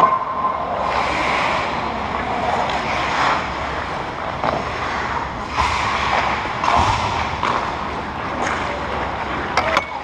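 Ice hockey skate blades scraping and carving the ice close by, in repeated hissing strokes over a steady background noise, with a few sharp clicks near the end.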